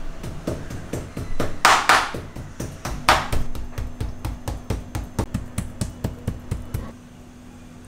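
Kitchen knife striking raw pork chops on a plastic cutting board, a quick run of chopping taps to tenderise the meat, with two longer, louder rasping strokes in the first half. The taps stop shortly before the end, leaving a faint steady hum.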